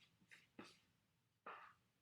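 A few short, faint scraping strokes of a spatula moving thick banana bread batter from a mixing bowl into a loaf pan.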